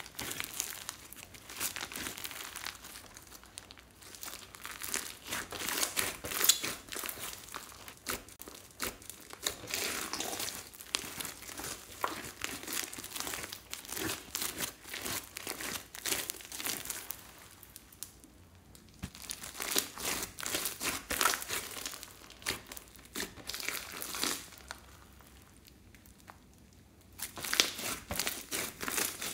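Pink clear slime packed with small beads and sequins being squeezed, stretched and folded by hand, giving a dense run of crackling, popping clicks and squishes. The crackling eases off in two short pauses, about two-thirds of the way in and again shortly before the end.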